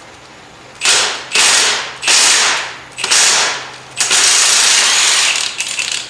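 Impact gun hammering in five bursts, the last and longest stuttering near the end, as it works to break loose a rusted exhaust manifold bolt heated with a torch.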